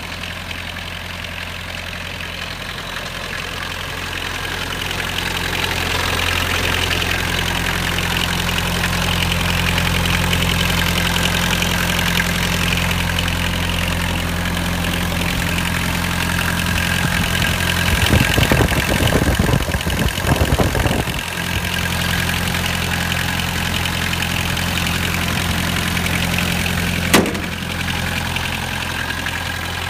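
Kubota four-cylinder engine in an orange ride-on mower idling steadily. It grows louder about five seconds in and holds there, with a rough rattling patch around two-thirds of the way through and a single sharp click near the end.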